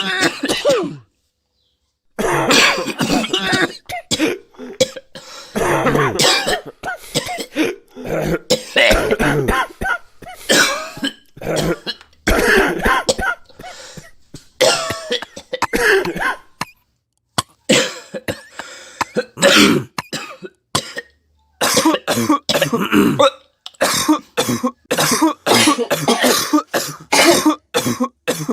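A person coughing hard again and again, in bouts of short coughs separated by brief pauses, with some throat clearing.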